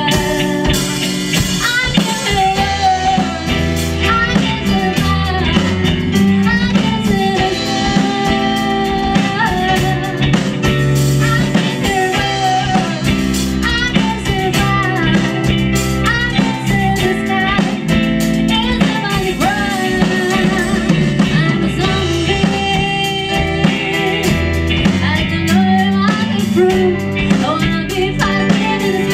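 Live rock band playing a song at full volume: electric guitars, bass and drum kit, with a bending melodic lead line over a steady beat.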